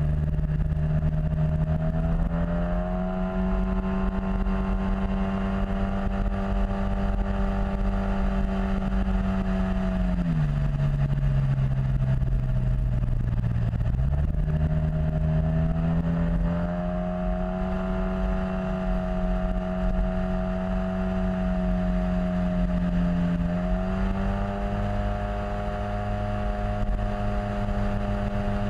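Yamaha T-Max XP500 maxi-scooter's 500 cc parallel-twin engine running at a steady note while riding, dropping in pitch about ten seconds in as the scooter slows, then climbing back up to the same steady note a few seconds later. Low wind rumble on the microphone underneath.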